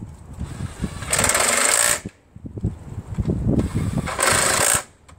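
Cordless power driver running in two short bursts, about a second and then half a second long, a rapid buzzing rattle as it works screws on the side of a snowblower engine.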